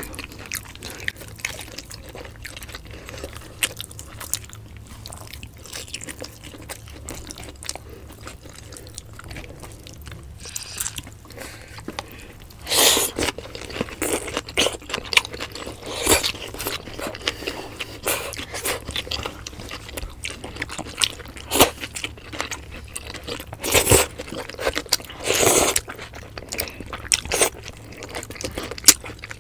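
Close-up eating sounds: chewing with small wet mouth clicks, broken by a few louder crunchy bites into raw green vegetables.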